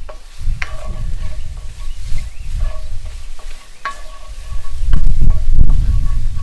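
Sliced mushrooms sizzling in a hot cast iron skillet as they are stirred, sweating out their water as they cook down. A utensil scrapes and clinks against the pan several times. A low rumble of wind on the microphone grows loudest about five seconds in.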